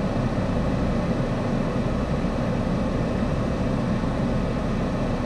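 Car idling while stopped: a steady, low, even rumble heard from inside the cabin.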